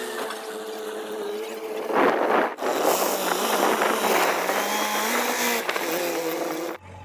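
Vehicle engine running steadily with a slightly shifting pitch, briefly interrupted about two and a half seconds in and cut off abruptly near the end.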